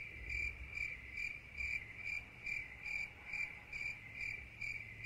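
Crickets chirping, an added "crickets" sound effect: one high chirp repeating evenly about twice a second, cutting off abruptly.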